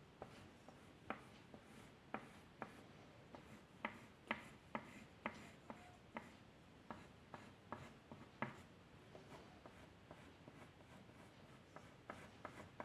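Quiet, irregular short strokes and taps of a drawing tool on paper, coming thickest in the middle.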